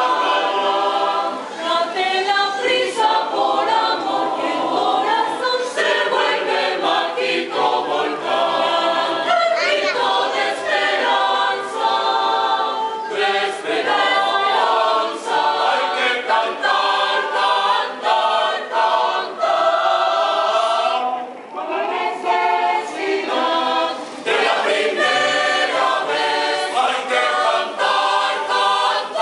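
Mixed choir of men's and women's voices singing a cappella, with a short break in the singing about three quarters of the way through.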